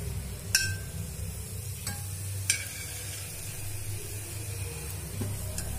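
Metal tongs clinking against the pan and plate while noodles are lifted out and served. Two sharp clinks with a short ring and a couple of lighter taps, over a steady low hum.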